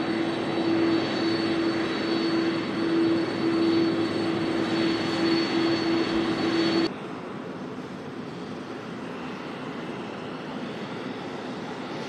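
The four turbofan engines of Air Force One, a Boeing 747 (VC-25A), running as it taxis: a loud rushing with a steady hum and a high whine. About seven seconds in the sound cuts abruptly to a quieter steady rumble.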